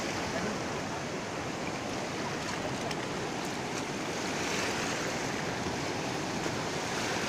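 The Torsa River in flood, swollen by non-stop rain, rushing past the bank with a steady, unbroken sound of fast water.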